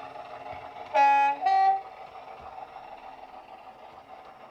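Sound-fitted Heljan Class 128 model diesel multiple unit playing an early-DMU sound file through small speakers. A two-tone horn sounds about a second in, a short lower note then a short higher one, over the steady running sound of the diesel engines, which grows quieter as the unit moves away.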